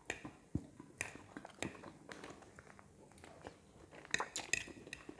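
Metal fork clinking and scraping on a plate while noodles are eaten, with soft chewing between the clinks. Several sharp clinks come close together about four seconds in.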